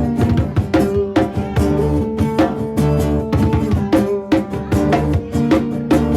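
Live rock band playing an instrumental passage, the drum kit's bass drum and snare hitting steadily over sustained guitar and bass.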